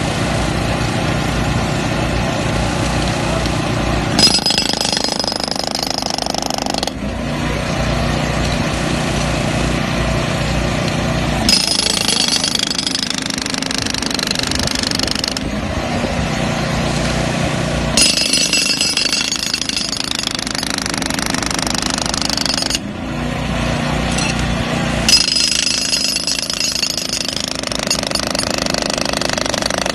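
WIPIN handheld hydraulic breaker hammering its chisel into concrete pavement: a rapid, continuous pounding that shifts in tone every three to four seconds, now heavy and low, now bright and ringing.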